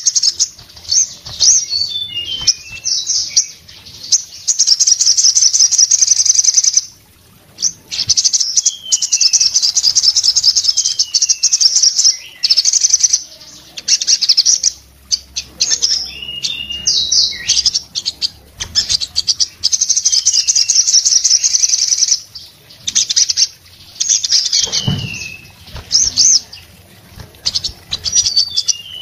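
Sogon sunbird singing in full song: long, very fast, high-pitched trills broken by short pauses, with short falling whistled notes mixed in.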